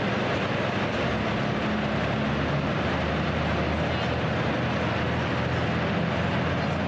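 International Harvester super stock pulling tractor's diesel engine running steadily at low speed, with a slight change in pitch about three seconds in.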